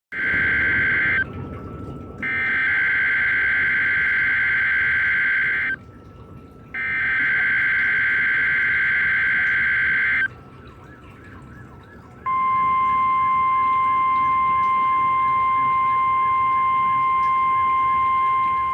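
NOAA Weather Radio alert signal for a weekly test: three screechy bursts of digital SAME header data about a second apart, then, about twelve seconds in, the steady 1050 Hz warning alarm tone, which holds for over six seconds.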